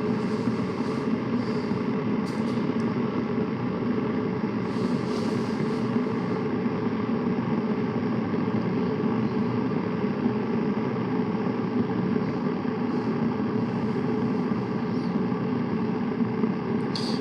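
Deerma DR035 electric kettle heating water just short of the boil, at about 91 °C: a steady low rumbling noise of water about to boil.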